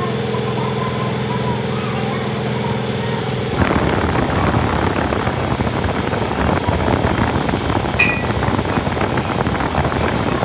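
Machinery running: a steady humming drone that, about three and a half seconds in, suddenly gives way to a louder, rough rattling noise, with one sharp click near the end.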